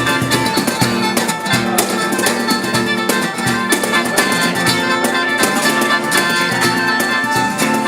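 Band music with held notes over plucked strings and frequent percussive strokes.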